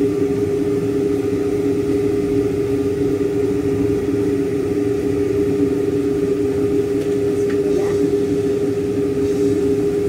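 Steady hum of a running kitchen appliance motor, holding an unchanging low drone throughout, with a few faint light clicks in the second half.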